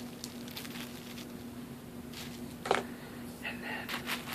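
Bubble wrap and small plastic specimen boxes being handled: faint crinkling and rustling, with one sharp plastic click about two and a half seconds in. A steady low hum runs underneath.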